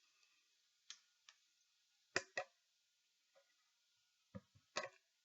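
A few sharp clicks and knocks of a stapler being opened and loaded with staples: a couple of light clicks about a second in, a louder pair after two seconds, and another few near the end.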